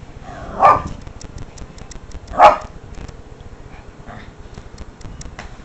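Small dog barking: two sharp barks about two seconds apart, then a fainter one.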